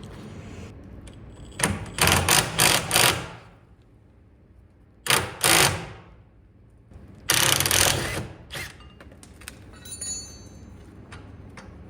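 Impact wrench working on the front suspension bolts: four short rattling bursts, then two more, then one longer burst, followed by a few light clicks of tools and parts.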